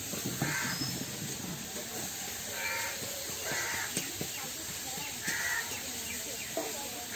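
A crow cawing four times, a second or two apart.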